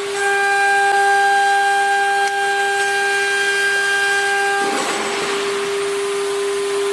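CNC router spindle running with a steady high whine made of several even tones. About four and a half seconds in, a harsher hiss of cutting noise swells for about a second, then the whine carries on alone.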